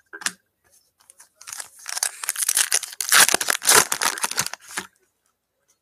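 Foil wrapper of a Panini basketball card pack being torn open and crinkled by hand, a brief crinkle at the start and then about three seconds of dense tearing and crinkling.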